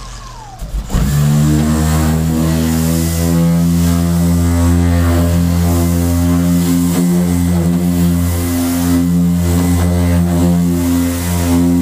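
Corded electric dual-action (DA) sander starting up about a second in, then running steadily with a constant hum as its 320-grit disc on an interface pad scuffs the car's painted hood dull before priming.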